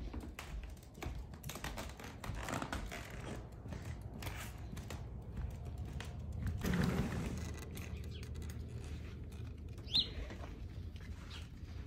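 A small chihuahua's claws clicking and tapping in quick, irregular steps on a wooden ramp and hardwood floor. About ten seconds in, one short, high chirp rises sharply.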